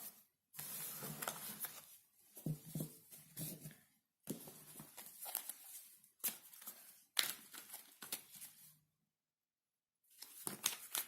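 Tarot cards being handled and shuffled: a papery rustle with sharp snaps of card stock, in several short bursts separated by brief silences.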